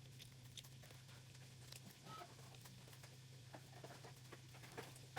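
Near silence with faint, irregular soft clicks from Model Magic clay being kneaded with lotion by hand, over a low steady hum.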